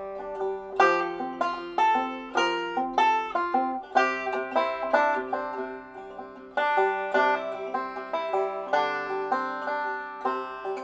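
Background music: a bright, fast-picked banjo tune in a bluegrass style, quick plucked notes in a steady rhythm.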